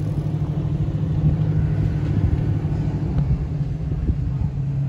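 An engine running steadily: a continuous low hum and rumble.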